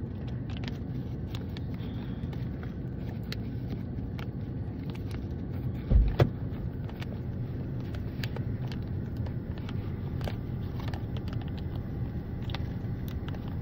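Parked car's engine idling, a steady low hum heard inside the cabin, with scattered light clicks and rustles and a sharp double thump about six seconds in.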